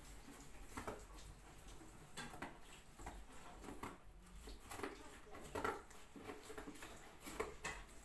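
Scissors cutting through cardboard: irregular crunching snips, some louder than others.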